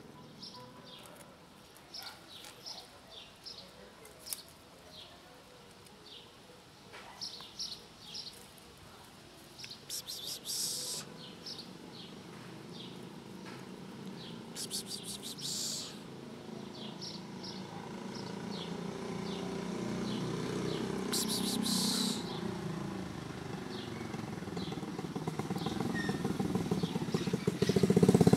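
Small birds chirping in quick short calls, broken by three brief bursts of high hiss. About two-thirds of the way through, a vehicle engine comes in low and grows steadily louder as it approaches, loudest near the end.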